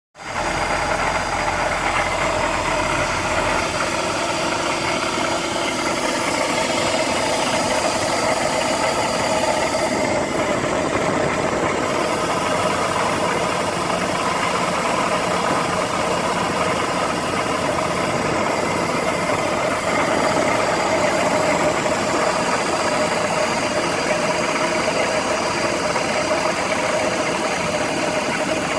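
BMW E46 330i ZHP's 3.0-litre straight-six (M54) idling cold with a steady rattle. A new belt tensioner and deflection pulleys, a new DISA valve and a VANOS rebuild with an anti-rattle kit have not cured it, and the owner has no idea what causes it.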